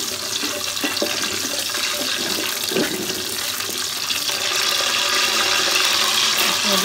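Whole spices (cinnamon sticks, cardamom pods and bay leaves) sizzling in hot oil in an aluminium pot, stirred with a wooden spatula. The sizzle grows a little louder about two-thirds of the way through.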